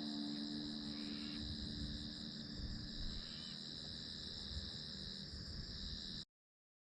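Faint, steady chorus of insects, crickets or similar, holding two high, unbroken pitches. It cuts off suddenly about six seconds in.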